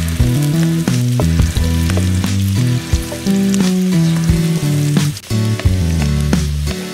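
Chicken curry sizzling and frying in a pot, with instrumental background music playing a melody of shifting notes over it.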